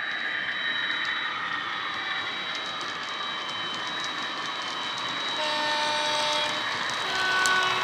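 Model locomotive DCC sound decoder playing a Class 88 diesel-mode engine sound through its small speaker, with a steady high whine over the engine noise and light clicking of wheels on track. Near the end a horn sounds two notes, the second lower.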